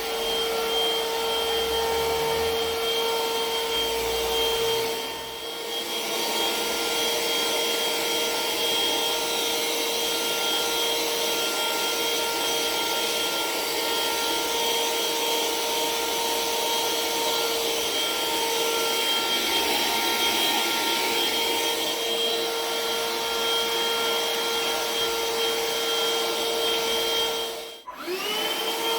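Black+Decker BCHV001D1E cordless stick vacuum running in upright mode with its floor brush, a steady high motor whine. The sound dips briefly about five seconds in. Near the end it cuts out, and the motor spins back up with a rising whine.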